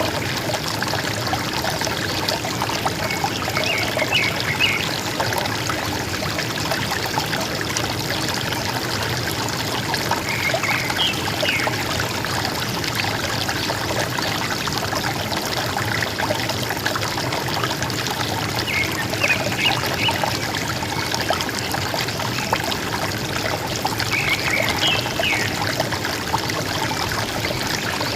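River water gurgling and trickling steadily, with a forest bird's short chirping phrase heard four times, every five to seven seconds.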